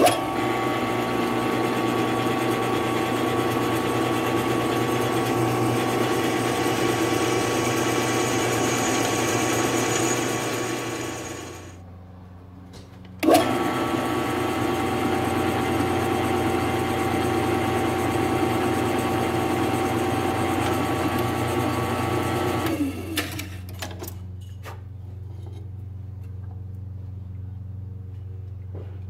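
Drill press running, a quarter-inch bit cutting pin holes through a steel knife blade: a loud, steady cutting sound for about 11 seconds, a short drop while the bit is lifted, then a second hole drilled for about nine seconds. After that the motor keeps running more quietly, with a few clicks near the end.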